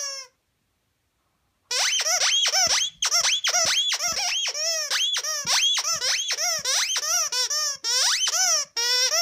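A dog chewing a plush squeaky toy, giving a rapid string of squeaks that rise and fall in pitch, starting after a quiet second and a half.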